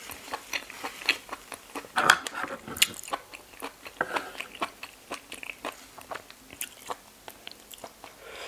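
Close-up chewing of a large mouthful of razor clam meat: a dense run of wet mouth clicks, crunches and smacks, loudest about two seconds in. About four seconds in a wooden spoon scrapes across the tray, and near the end sauce is sipped from the spoon.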